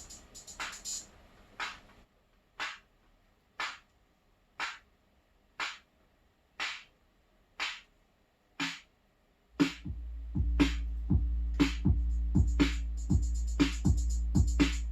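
Arturia Drumbrute Impact analog drum machine playing a beat. The pattern thins to a lone snare-type hit about once a second with no bass drum or hi-hats, and about ten seconds in the full beat comes back with a heavy bass drum and a steady hi-hat pattern on top.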